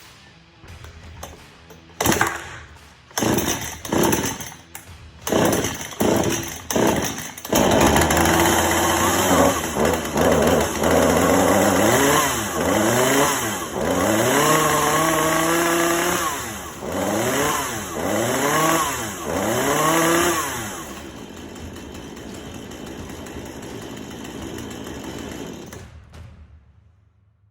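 Husqvarna 435 two-stroke chainsaw being pull-started with a newly fitted carburetor. It gives about six short pulls before the engine catches, then it runs and is revved up and down repeatedly, settles to idle, and shuts off near the end. It starts and holds an idle after being a no-start.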